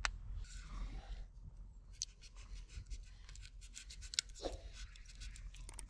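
A knife blade cutting and scraping into birch bark on a log, a faint run of short scratchy clicks that comes thicker from about two seconds in.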